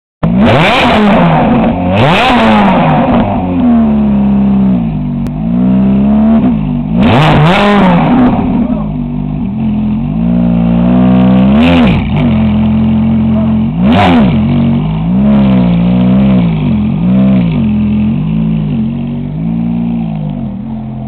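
Ferrari F430's 4.3-litre V8 exhaust revved hard again and again at a standstill, each rev a sharp rise and fall in pitch. Then a run of shorter, quicker blips as the car pulls away, getting fainter near the end.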